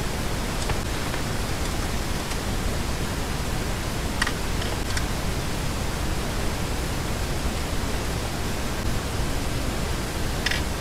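Steady, even rushing hiss with a few faint ticks.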